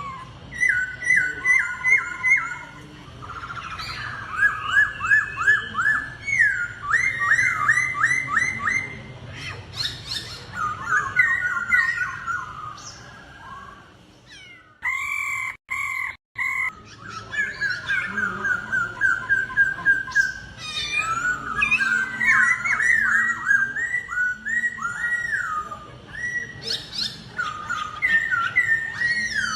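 Laughingthrush (khướu) song: loud whistled phrases of fast repeated notes and sliding calls, with a short break about halfway through.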